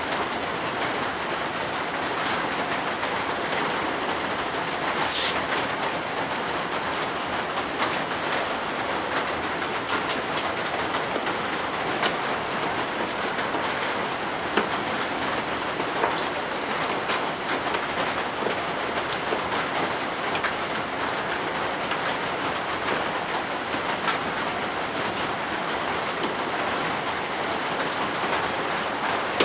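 Steady hiss, with occasional sharp clicks from a socket ratchet turning a bolt on a steel plate.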